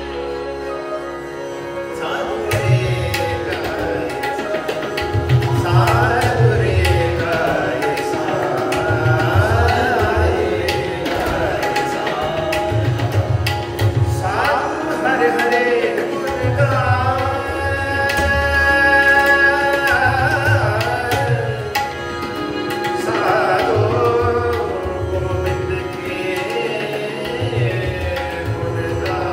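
Sikh kirtan: a voice singing long, ornamented phrases of a shabad over a steady held drone, with tabla keeping a steady rhythm underneath.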